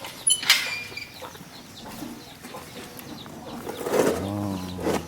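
Penned poultry stirring: a sudden burst of wing flapping about half a second in. Near the end comes a short, low, droning call.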